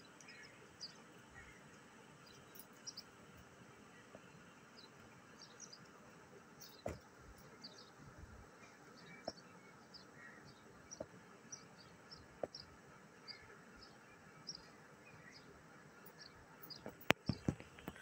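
Faint, short high-pitched chirps from a rose-ringed parakeet, repeating irregularly, with scattered clicks and a cluster of louder knocks near the end.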